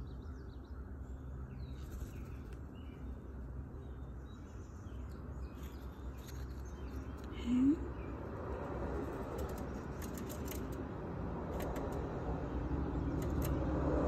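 Outdoor ambience with faint, scattered bird chirps. A brief low rising sound, the loudest moment, comes about halfway through. A passing vehicle grows steadily louder over the last six seconds.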